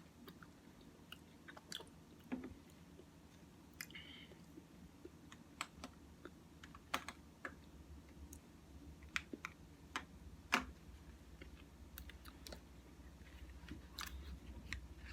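Faint chewing and mouth smacks of someone eating Cookie Crisp oatmeal, with many scattered sharp little clicks.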